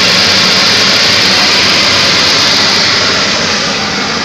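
Vapour absorption chiller plant running: a loud, steady machinery roar with a low hum beneath it, easing slightly near the end.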